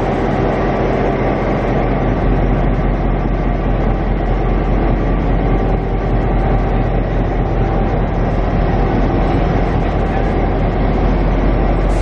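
Two Queensland Rail diesel-electric locomotives, led by 2485H, under power as they haul a passenger train out and pass close by. Their engines run with a steady note and a strong low hum.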